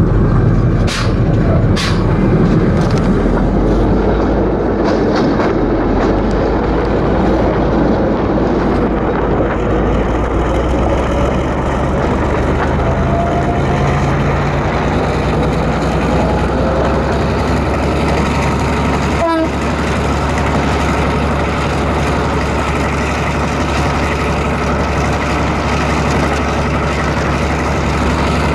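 EMD GR-12 diesel-electric locomotive running along the line: the steady drone of its twelve-cylinder EMD 567 engine over the noise of wheels on rail. There are a few sharp knocks in the first couple of seconds and another about two-thirds through, as the wheels ride over rough track.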